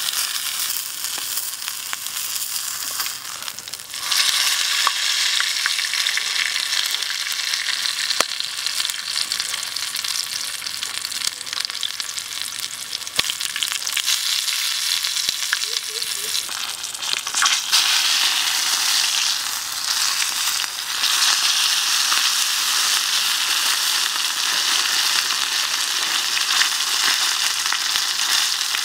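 Chicken wings frying in hot oil in a metal pan: a steady sizzle with a few sharp pops. It gets louder about four seconds in and again a little past halfway.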